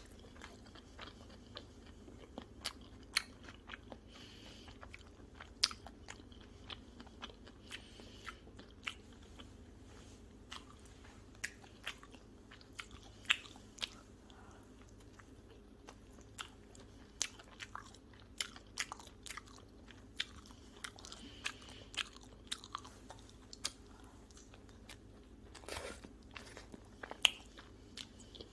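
Pizza being bitten and chewed, with many short, sharp crunches scattered throughout; the loudest crunches come about a third of the way in, about halfway through, and near the end.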